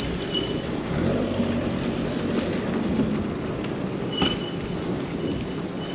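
Steady low rumble of riding a bike along a road, tyre and wind noise. There are a few short high squeaks and a sharp click about four seconds in.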